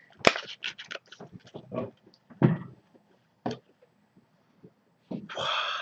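A small plastic pepper pack crinkling and clicking as it is opened by hand, with a louder crackle about two and a half seconds in. A short breath near the end.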